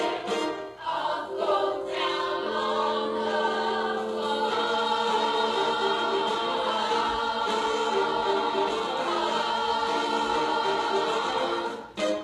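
Choir singing with musical accompaniment, closing on a long held chord that stops abruptly near the end.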